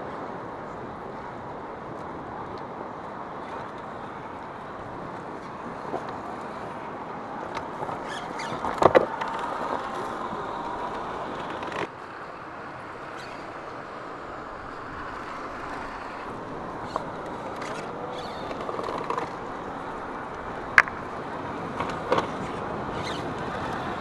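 Electric motor and gear drivetrain of an RC rock crawler whining, its pitch rising and falling with the throttle, over a steady noise bed, with a few sharp knocks, the loudest about nine seconds in and twice near the end.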